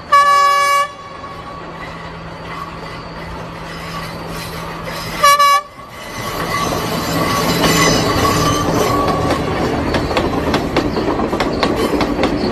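Passenger train sounding its horn, one blast of about a second, then a shorter one about five seconds in. After that the wheels clatter over the rail joints, growing louder as the carriages pass close by.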